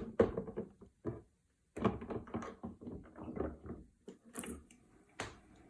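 Plastic knocks and clunks of a Levoit humidifier and its water tank being handled and set in place, a string of irregular taps with a sharper knock near the end.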